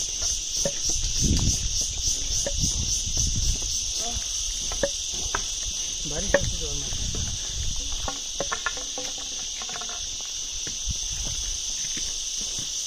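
Forest insects droning steadily at a high pitch, pulsing rapidly for the first few seconds, over scattered soft thumps and clicks of footsteps on the path.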